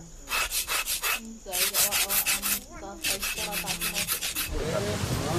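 Rasping, scraping strokes in quick runs of about six a second, with faint voices behind them. Near the end a steady hiss of rain sets in.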